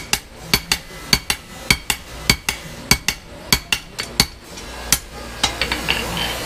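Two hand hammers striking a 5160 spring-steel sword blade in turn on an artillery-shell anvil during forging: a ringing double strike nearly twice a second. The hammering stops about five seconds in, followed by a few light taps.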